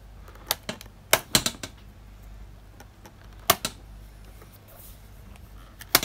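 Plastic hard drive bay cover on the underside of a Lenovo IdeaPad 510 laptop being pried up by fingers: sharp plastic clicks as its clips snap loose, a quick cluster about a second in and the loudest single snap a little past the middle.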